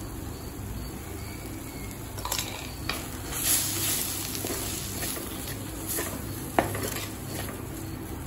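A spatula scraping and tapping in a clay cooking pot as ground spice powder is stirred into cooked gongura leaves, with a few sharper knocks and a faint sizzle.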